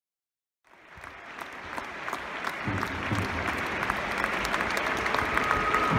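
Football stadium crowd clapping. It fades in about a second in and grows steadily louder.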